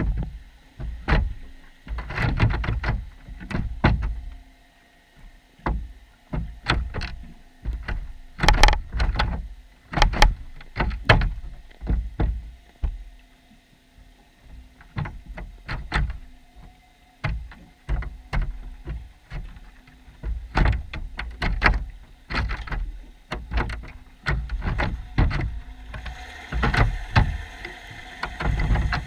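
Underwater sound inside a submerged wire-mesh fish trap: irregular knocks, clicks and thumps, several a second at times, the loudest about 8 to 11 seconds in, with a faint steady hum underneath.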